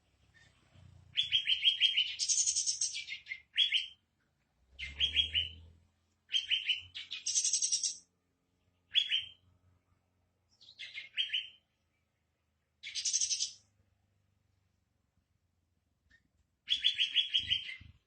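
Olive-winged bulbul song played as a lure recording to coax captive bulbuls into singing: short phrases of quick falling chirps followed by higher buzzy notes, repeated with pauses of about a second between them.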